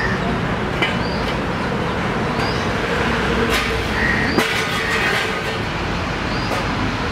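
Steady rumble of city traffic, with short high chirps now and then and a few clicks about halfway through.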